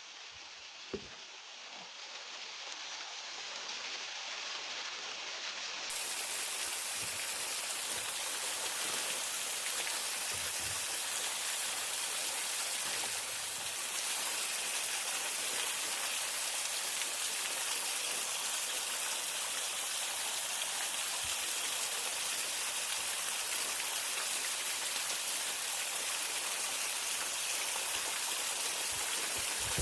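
Waterfall water running steadily, a rushing hiss that swells over the first few seconds and then holds even. There is one short click about a second in.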